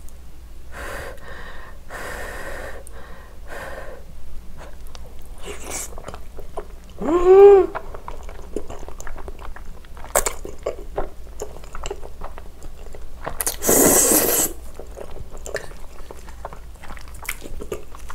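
Close-miked chewing and slurping of creamy pasta noodles, with one loud slurp about fourteen seconds in. About seven seconds in there is a short hummed 'mmm' that rises and falls.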